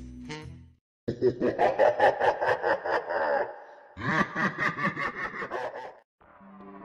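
Laughter in two bursts, a quick run of ha-ha pulses, each burst about two seconds long with a short pause between. Background music fades out just before and comes back softly near the end.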